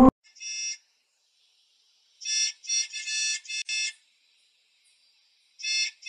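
School bus horn honks pitched far up as an edited sound variation: one faint short honk near the start, a quick run of about five short high honks between two and four seconds in, and another run beginning near the end, with silence between.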